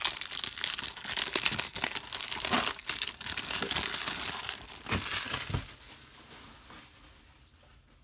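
Clear plastic shrink wrap being pulled off a Blu-ray case and crumpled in the hands, crinkling and crackling for about five seconds before dying down to faint rustles.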